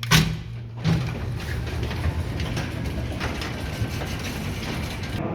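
A sharp knock, another about a second in, then a steady mechanical rattle over a low hum.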